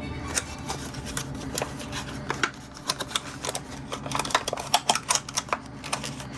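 Irregular light clicks, taps and rattles of two C batteries and their packaging being handled, thickest about two thirds of the way through.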